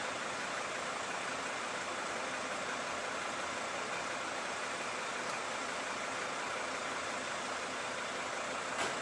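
Steady, even mechanical running noise from an engine or motor, with a short tap just before the end.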